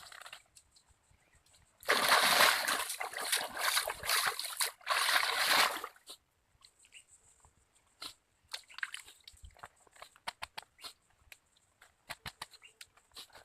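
Water splashing and sloshing hard for about four seconds, easing briefly midway, then lighter scattered splashes and drips.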